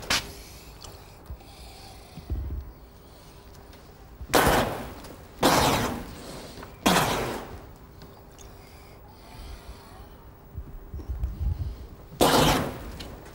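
Fire-breathing: four short rushing bursts of flame as fuel is blown through a torch into fireballs, three close together a few seconds in and one near the end.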